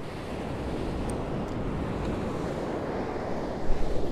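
Surf breaking and washing up the sand, with wind buffeting the microphone. The wind gusts harder near the end.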